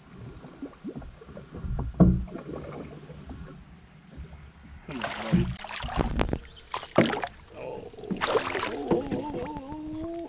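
Hooked smallmouth bass splashing at the side of a small aluminium boat as it is fought in and grabbed by hand, with scattered knocks and splashes, most of them in the second half. A steady high-pitched hum comes in about three and a half seconds in.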